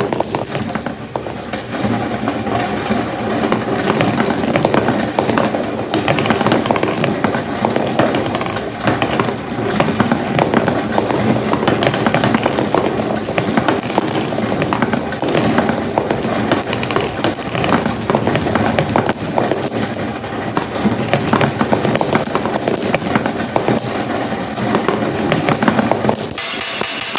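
Marbles rolling and clattering down a homemade marble run: a steady rolling rumble thick with small clicks as the marbles knock along the track.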